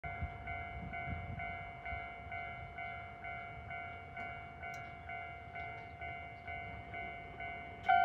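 Japanese railway level-crossing warning bell sounding its older standard tone: a ringing ding repeated about twice a second, steady throughout.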